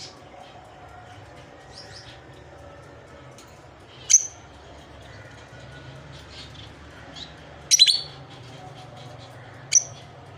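Lovebirds chirping in short, sharp, high-pitched calls. There is a loud single chirp about four seconds in, a quick run of several around eight seconds, another single chirp near the end, and fainter chirps between, over a low steady hum.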